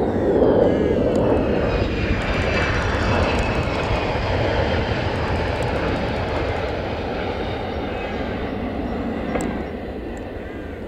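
F-15 fighter jet landing: its twin jet engines make a dense rumble, loudest at the start. A whine falls steadily in pitch over the first few seconds as the jet passes, and the sound eases off gradually as it touches down and rolls out on the runway.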